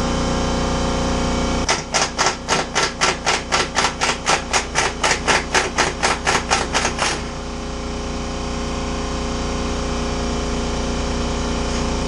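A quick, even run of about twenty sharp metal impacts, roughly four a second, lasting about five seconds, over the steady running of an air compressor.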